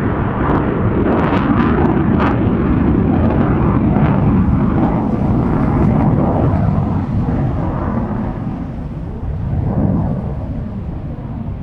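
Fighter jet engine running in afterburner: a loud, steady low rumble with crackles in the first couple of seconds, easing slightly toward the end.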